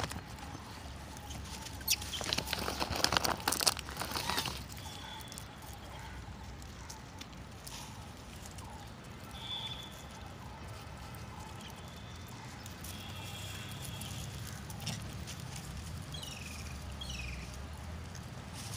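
Outdoor ambience with a few short high chirps and a couple of falling squeaks from animals, and a loud burst of rustling noise about two to four seconds in.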